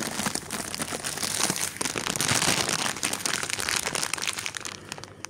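Plastic bag of coconut-raspberry candies crinkling as it is taken from the bin and turned over in the hand, a dense crackle that is loudest in the middle and eases off near the end.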